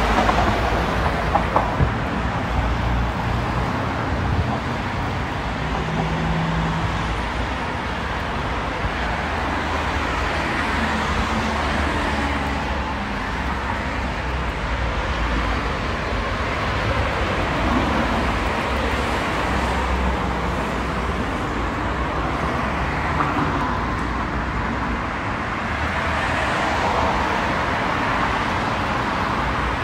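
Steady road traffic on a busy multi-lane city street: cars passing, engines and tyres making a continuous rumble and hiss. A few short clicks come about a second in.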